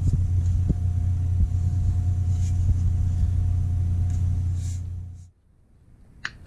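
A steady low hum with a faint higher tone over it, and a few light knocks, cutting off suddenly a little past five seconds. Near the end, one sharp tap of a wooden mallet on the axe handle.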